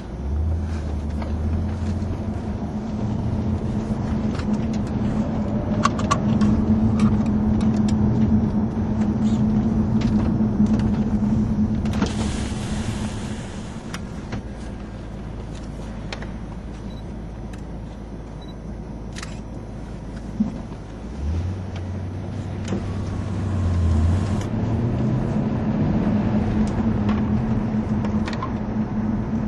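Vauxhall Monaro's V8 engine and road noise heard from inside the cabin while driving downhill. The engine note steps up and down a few times as the revs change, with two short stretches of louder hiss.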